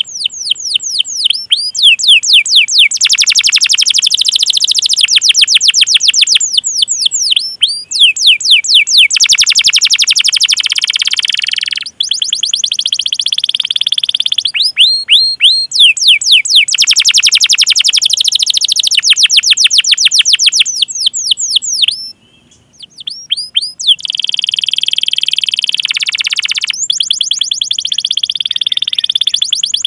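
Domestic canary singing: quick series of high, falling 'cuit' whistles, about five a second, alternating with dense rolling trills. The song breaks off briefly about two-thirds of the way through.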